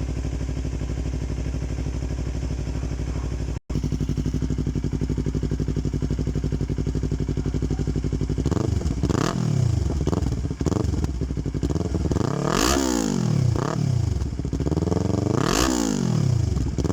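Yamaha YZF-R3's 321cc parallel-twin engine, breathing through a Yoshimura aftermarket exhaust, idling steadily, then blipped several times: revs rising and falling quickly, with two big revs in the second half before it drops back to idle.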